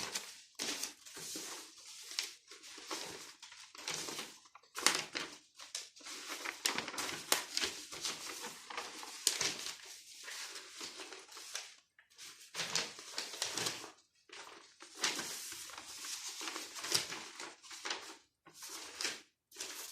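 Someone writing by hand: irregular scratchy strokes with short gaps between them.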